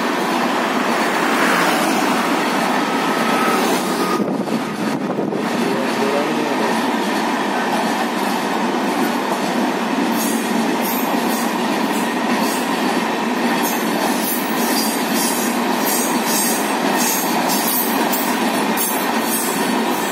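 Indian Railways passenger coaches rolling past at close range, giving a steady rumble of wheels on rail. Over the second half the wheels set up a repeated clatter over the rail joints.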